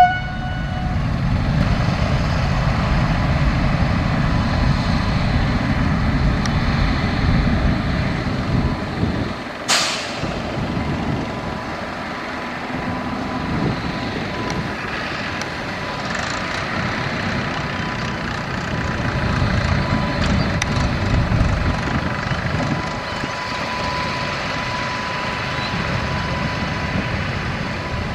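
Two WDG3A ALCo diesel locomotives running light, a deep engine rumble that cuts off abruptly about ten seconds in. Then a WAP-7 electric locomotive moving light, quieter, with a steady high whine.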